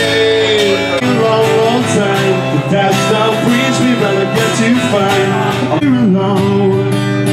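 A live solo singer with an acoustic guitar: a strummed chord accompaniment under a sung melody that glides up and down.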